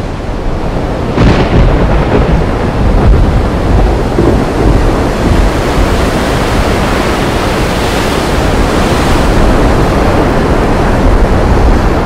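Swollen, fast-flowing muddy river in rainy-season flood, rushing loudly with a deep rumble; the noise swells about a second in and stays strong.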